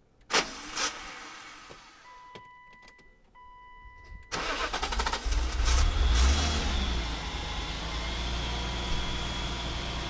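Two sharp thumps, then a steady electronic tone in two stretches. Then the BMW E34's M50B25 straight-six cranks on the starter for about a second and a half, catches and settles into a steady idle with a faint high whine.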